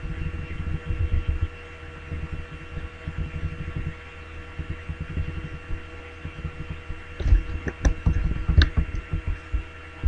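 Steady electrical hum from the recording setup over an uneven low thumping rumble, with a few sharp clicks about seven to nine seconds in.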